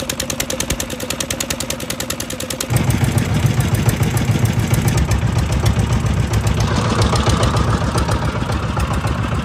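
Boat engine running with a fast, even pulse. About three seconds in it grows louder, with much more low rumble.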